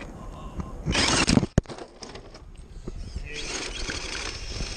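Small RC rock crawler scraping and clattering against rock, with a loud burst about a second in that cuts off abruptly. Its small electric motor then whirs quietly as the truck ends up rolled onto its side.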